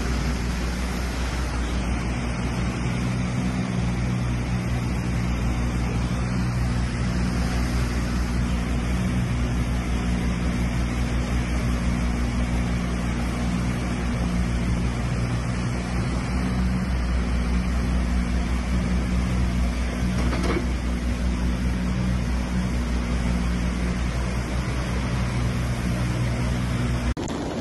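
Mattervispa river in flood, a fast brown torrent rushing through its concrete channel: a steady loud roar of water with a deep low hum under it.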